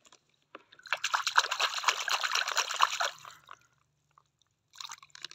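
Water splashing and trickling in a plastic tub as a hand moves through it, in two spells: one lasting about two seconds from a second in, and a shorter one starting near the end.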